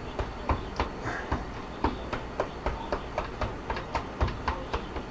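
Kitchen knife chopping on a cutting board in quick, even strokes, about four a second.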